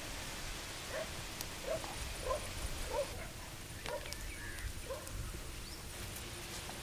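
An animal's short, rising calls, about six of them roughly a second apart, over a steady background hiss.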